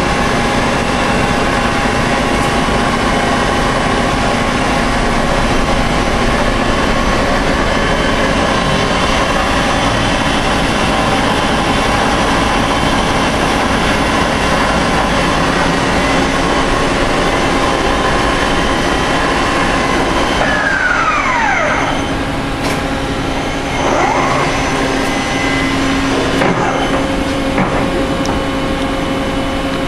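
Mori Seiki MV-45/40 vertical machining center running under power: a loud, steady machine noise with several steady whining tones. About twenty seconds in, a whine falls quickly in pitch and the noise drops, leaving a lower steady hum.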